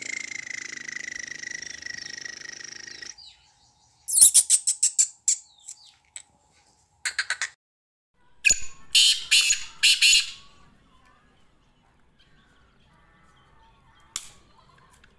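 Black francolin calling: groups of loud, harsh, grating notes in quick succession, the longest and loudest about nine seconds in. Before them, a long steady high note falls slightly in pitch.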